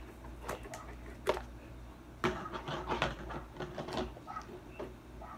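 Cardboard toy box being handled and turned over in the hands: scattered taps and scrapes, with a sharp knock about a second in and a run of clicks and taps from about two to four seconds in.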